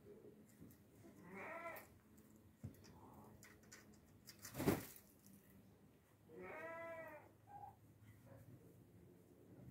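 Chickens calling: a short drawn-out call a little over a second in, and a longer one that rises and falls in pitch at about six and a half seconds. A single sharp knock falls between them, about halfway through.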